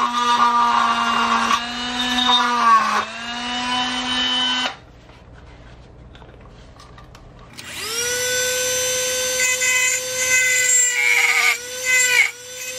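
Handheld rotary tool (Dremel) grinding into the black plastic tabs of a boat gauge housing to cut them free, its motor whine sagging in pitch as the bit bites. About a third of the way in it cuts off, and after a few seconds it starts again, spinning up to a higher pitch and dipping under load as it grinds once more.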